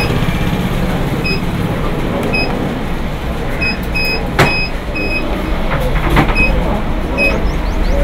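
Keypad of an automotive AC refrigerant recovery and recharge station beeping as its buttons are pressed: about eight short, high electronic beeps at irregular intervals, with a sharp click about halfway through. A steady low hum runs underneath.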